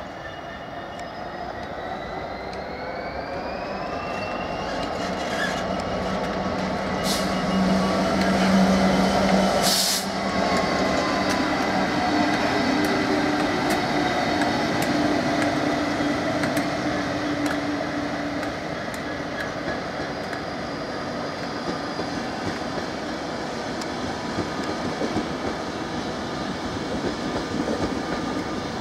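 Two diesel locomotives, a Class 66 leading a Class 57, both with EMD two-stroke diesel engines, running past at low speed. The engine notes rise as they approach and get louder, then the second locomotive's engine passes. There is a sharp brief noise about ten seconds in, then steady wheel-and-rail rumble with light clicks over the rail joints.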